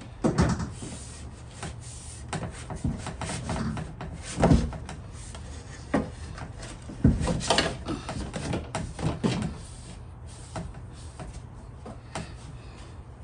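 Irregular knocks, taps and rubbing as window glass is handled and worked down into a 2005 Nissan Altima rear door. The loudest knocks come about four and a half and seven seconds in, and the handling goes quieter over the last few seconds.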